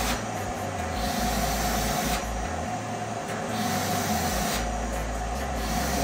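Canister vacuum cleaner running steadily with its nozzle held against hair: a constant motor whine under a suction hiss that swells and fades several times as the nozzle moves.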